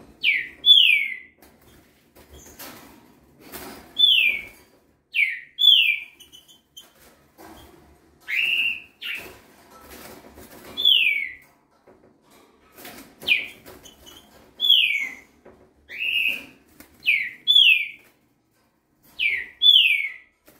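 Fledgling green-winged saltator (trinca-ferro) singing a fast, repeated song of short, downward-slurred whistled notes, often in pairs, coming every second or two. Light rustles of wing flutters fall between the notes.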